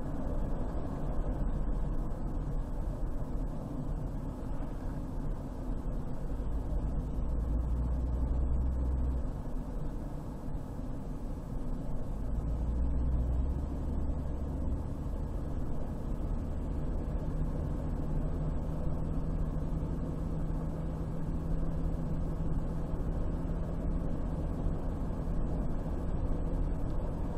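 Car driving: a steady low rumble of engine and road noise, with the lowest hum shifting in pitch a few times as the speed changes.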